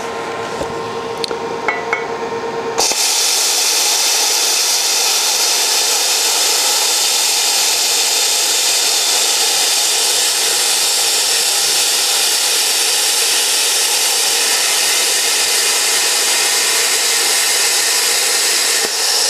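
Hand-held plasma cutter, a Longevity Innovator 255i, cutting through a steel wheel rim. After a few seconds of steady hum and a couple of clicks, the arc strikes about three seconds in and gives a loud, steady hiss, which dips briefly near the end.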